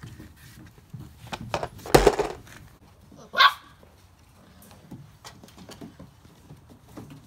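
Briard puppies barking: a loud bark about two seconds in and a higher, sharply rising yelp about a second later, with light clicks and knocks between.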